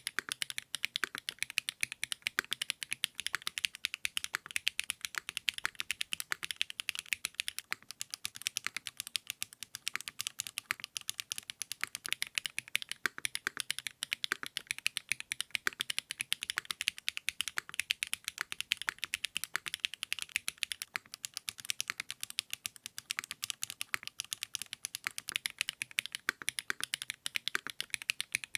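Steady fast typing on a custom mechanical keyboard fitted with 80Retros x HMX KD400 switches: a dense, unbroken stream of key clicks.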